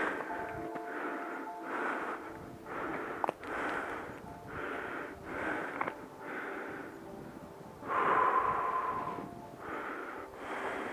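A hiker's hard, rhythmic breathing while climbing a slope, about one breath every second, with a longer, louder exhale near the end, over faint background music with held notes.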